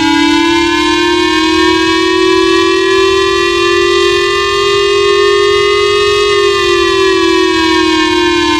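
A loud, buzzy alarm tone with many overtones, played from a recording. It holds one long note that rises slowly in pitch and starts to fall about six seconds in.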